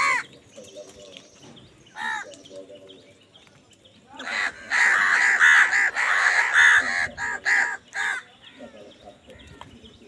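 A flock of house crows cawing while squabbling over food: a single harsh caw at the start and another about two seconds in, then many overlapping caws from about four to eight seconds in.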